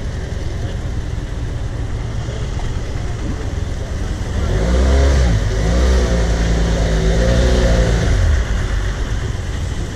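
BMW F800GS parallel-twin motorcycle engine pulling away, its pitch climbing and dropping several times as it goes up through the gears from about four seconds in, over a steady low rumble.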